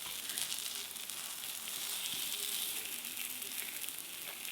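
Takoyaki batter sizzling steadily in a hot takoyaki pan while the balls cook.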